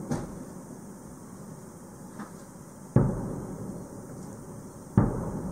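Aerial firework shells bursting: a few fainter booms early on, then two loud booms about three and five seconds in, each trailing off in a rumbling echo.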